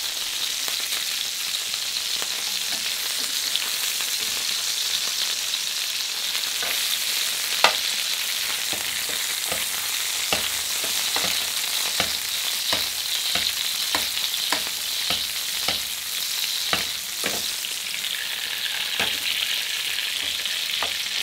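Veal sweetbreads frying in foaming butter in a frying pan and being basted with the hot butter: a steady sizzle, the butter kept foaming and not burnt. From about a third of the way in, light clicks of the basting spoon against the pan come roughly once a second.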